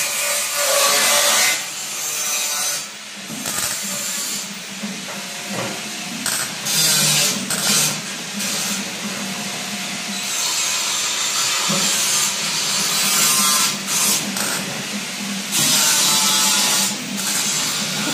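MIG welding: the welding arc crackles and hisses in bursts of a few seconds, with short pauses between welds, as steel bars are welded onto a stainless steel washing-machine drum. A steady low hum runs underneath.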